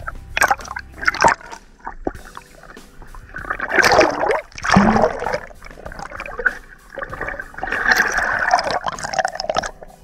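Water splashing and sloshing in irregular bursts: two short splashes in the first second or so, then longer sloshing spells around four to five seconds in and again near the end.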